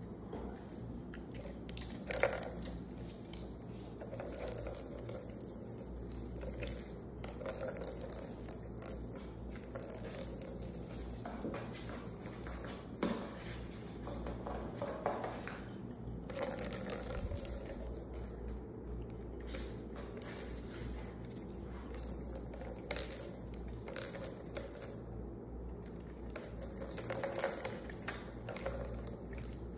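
Plastic balls rattling and rolling around the tracks of a tiered plastic cat ball-track toy as kittens bat at them, with scattered knocks, the loudest about two seconds in, and faint high chirps throughout.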